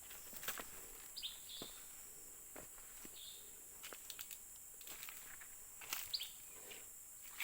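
Short bird chirps at scattered moments over a steady high-pitched hiss, with a few soft clicks in between.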